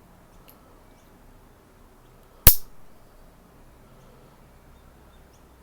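A single sharp metallic click about two and a half seconds in: a folding tool of an all-metal Kobalt 15-in-1 multi-tool snapping into place. Around it are faint small ticks from handling the tool.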